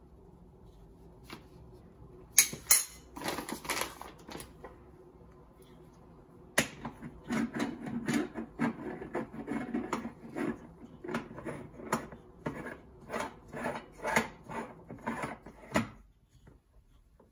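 Stovetop moka pot being put together: metal clinks and knocks about two seconds in as the upper chamber is set on the base, then a long run of short scraping turns, about two to three a second, as the metal threads are screwed tight.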